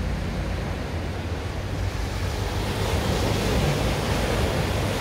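Water rushing through a concrete-walled stream channel, a steady hiss that grows a little louder about halfway through.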